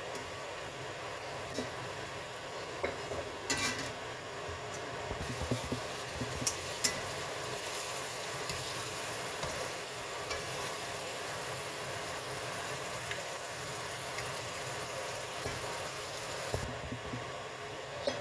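Sliced beef and zucchini sizzling in a wok while a spatula stirs and scrapes them, with scattered clicks of the spatula against the pan. The sizzle stops suddenly near the end.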